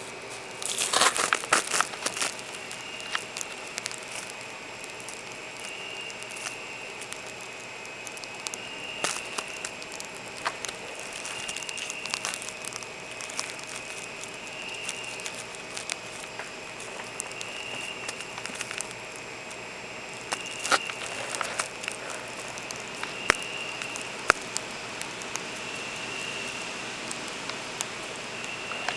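Crackling and rustling of cardboard with scattered sharp clicks, loudest in a burst about a second in and again near 21 seconds.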